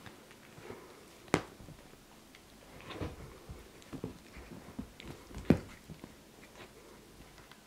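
Scattered soft thumps and rustles of a Siamese cat play-wrestling with a person's hand on a fabric sofa, with two sharp knocks, one about a second in and a louder one near the middle.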